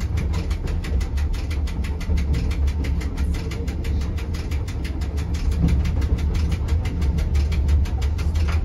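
Rigi mountain railway electric rack train running slowly, heard from inside the driver's cab: a steady low rumble with a fast, even ticking.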